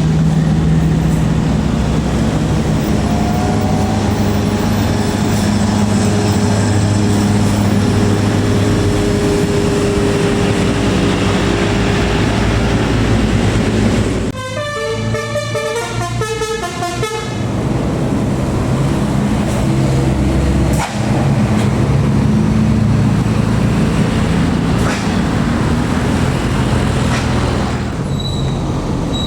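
Heavy bus engines running loud and steady on an uphill climb. About 14 seconds in, a telolet horn (a set of electric multi-tone horns) plays a quick stepping melody for about three seconds before the engine noise returns. A thin high-pitched squeal starts near the end.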